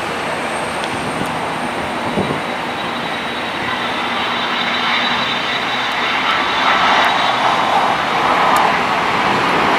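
United Boeing 787 Dreamliner jet on final approach, passing low overhead: steady jet engine noise with a thin high whine, growing louder over the last few seconds as it nears.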